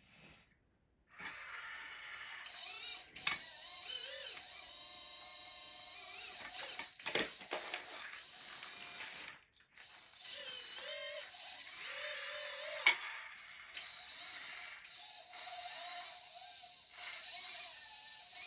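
Hydraulic pump and valves of a 1/14-scale RC excavator running with a steady high whine, the lower tone shifting as the arm and bucket move, with a few sharp clicks and clatter. The sound breaks off briefly twice.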